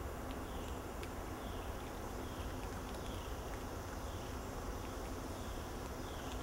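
Steady forest background in which an animal repeats a short falling chirp about twice a second. Faint crunching comes through as a blue-eyed black lemur chews a hard primate-chow biscuit.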